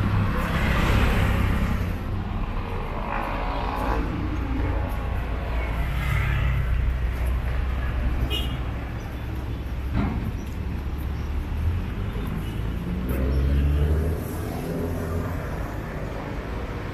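City street traffic: motor vehicles running and passing with a low engine rumble that swells and fades as they go by, and a sharp knock about ten seconds in.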